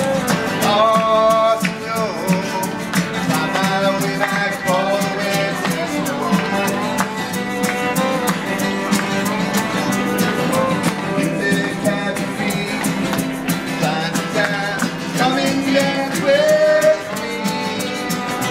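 A live acoustic folk band playing: acoustic guitar strumming steadily under held, gliding sung or melodic notes that come in strongest near the start and again near the end.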